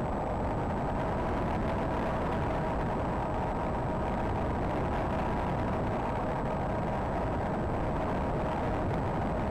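Electric motor and propeller of a Predator Z-51 RC foam plane running at steady throttle, heard through the camera mounted on the plane: a steady whine over a dense rushing noise.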